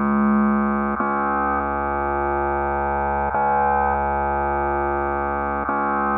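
Background music: sustained chords over a low bass note, the chord changing about every two and a half seconds, with no drum beat.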